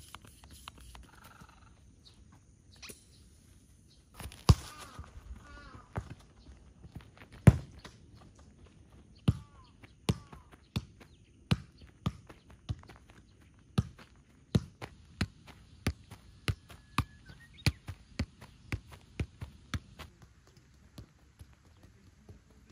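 Football struck with a boot again and again, each touch a sharp thump. Two louder kicks come early, then a quicker, even run of touches at nearly two a second that stops shortly before the end.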